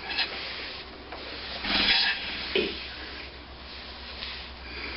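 Steady rubbing and scraping as the flywheel and crankshaft of a McCormick-Deering Type M 1-1/2 hp engine are turned slowly by hand while the main-bearing grease cup is screwed down to force grease into the bearing. The noise swells briefly about two seconds in.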